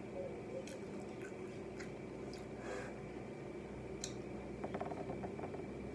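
A person chewing a mouthful of burger and fries, with faint scattered mouth clicks and a small cluster of them a little before the end.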